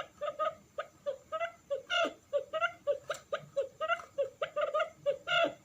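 Quail calling: a rapid, continuous run of short chirping notes, about four to five a second. It is a lure call of the kind used to attract wild quail.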